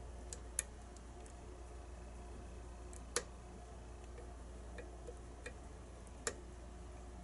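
Lock pick working the pins inside a custom challenge lock: scattered small metal clicks, the sharpest about three seconds in and another a little past six, over a steady low hum.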